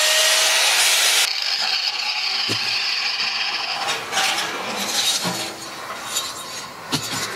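Angle grinder with a cut-off wheel cutting into the steel of a water heater tank, stopping abruptly about a second in. Quieter mechanical clatter and a few sharp metal knocks follow.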